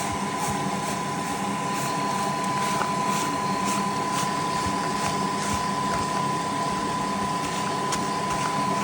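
Steady machine hum with a constant high whine, with faint scattered ticks of sugar-coated peanuts being pushed around on a tray.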